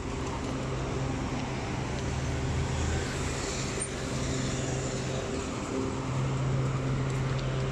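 City street traffic: cars and taxis running along the road as an even rush of noise, with a steady low hum underneath.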